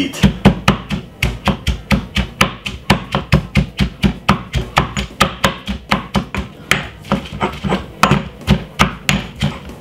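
Pestle pounding onion, garlic, thyme and spring onion in a mortar: a steady run of sharp knocks, about four a second.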